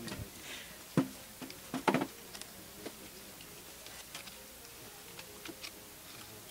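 Cardboard parts of a homemade toy weapon being handled and fitted together: light taps and knocks, two louder ones about one and two seconds in, then scattered faint ticks.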